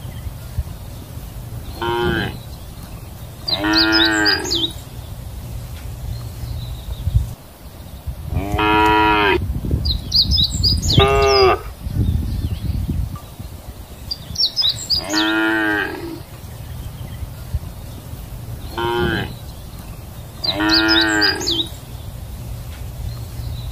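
Cows mooing: about seven moos, each about a second long, at irregular intervals. A steady low rumble runs underneath.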